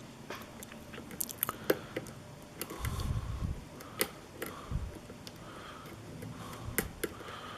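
Lock pick and tension wrench working the pins of a pin-tumbler challenge lock: scattered small metallic clicks, ticks and scraping, with a couple of duller low knocks about three and five seconds in.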